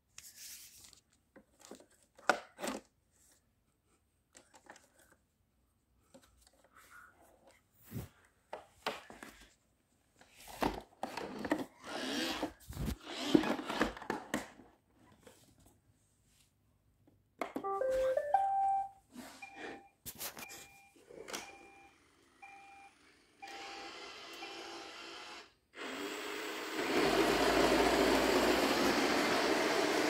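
iRobot Roomba 660 robot vacuum: scattered clicks and knocks as it is handled, then about halfway through a short rising chime followed by a run of short beeps. Its motors then start with a faint hum, and near the end the vacuum and brushes run steadily and much louder.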